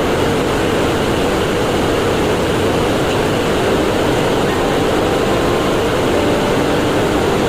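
Loud, steady drone of running machinery with no change or break.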